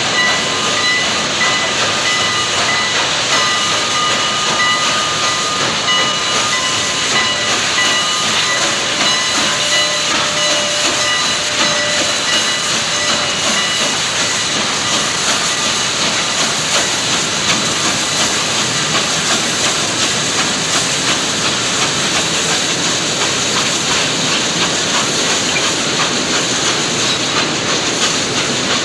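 Southern Pacific 4449, a GS-4 4-8-4 steam locomotive, hissing steam steadily as it pulls slowly out, with a few thin high steady tones that fade out about twelve seconds in.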